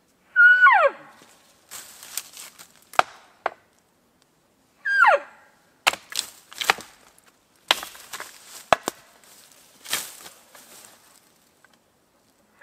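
Cow elk mews: short, high calls that fall sharply in pitch, twice and again right at the end. Between them come sharp snapping and cracking sounds like sticks and branches breaking.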